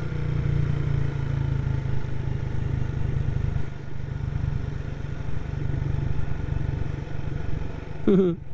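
Motorcycle engine running steadily at low road speed. The low rumble eases a little about three and a half seconds in, and a brief wavering sound comes just before the end.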